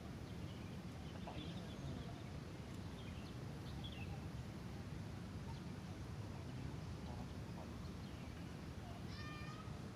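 Birds chirping now and then over a steady low outdoor rumble, with a quick run of repeated calls near the end.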